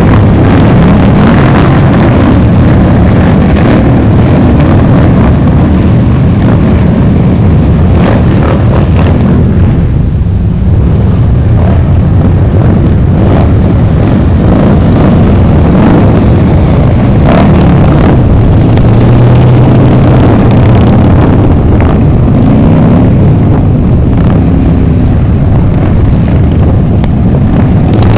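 A procession of large touring motorcycles riding past one after another, their engines running loud and continuous. Pitch rises and falls as individual bikes pass and pull away.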